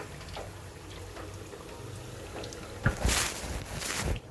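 Pancakes deep-frying in hot oil, with a steady bubbling sizzle. A sharp click comes just under three seconds in, followed by two short, louder rushes of noise.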